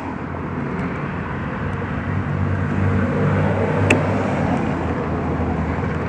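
Steady low vehicle rumble that swells towards the middle and eases off, with one sharp click about four seconds in, as mini pliers work the broken clip off the door-latch rod.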